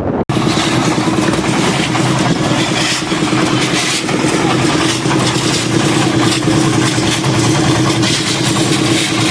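An engine running steadily at a constant speed, a steady hum under loud rushing noise.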